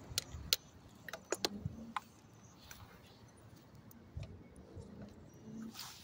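A few sharp, separate clicks and taps in the first two seconds, then a soft thump about four seconds in and a brief rustle near the end.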